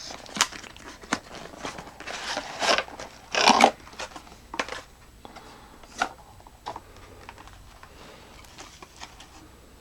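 Box being opened and its packaging handled: rustling, crinkling and sharp clicks, loudest in the first four seconds, then only a few light taps.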